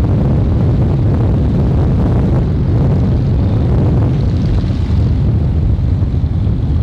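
Buick Grand National's turbocharged 3.8-litre V6 pulling hard through a Pypes exhaust, heard from inside the cabin as a loud, steady low rumble mixed with wind and road noise during a run to about 100 mph.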